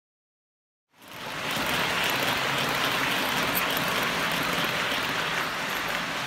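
Model passenger train running along the layout's track: a steady rolling noise of wheels on rails and motor that fades in about a second in and eases slightly near the end as the train moves away.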